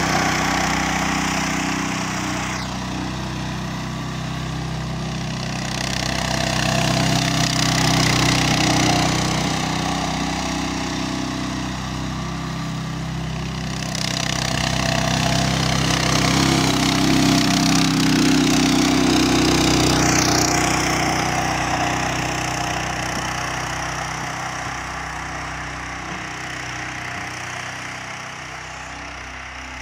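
Engine of a homemade articulated mini tractor running as it pushes snow with its angled front blade, swelling and easing as it drives about, then fading near the end as it moves off into the distance.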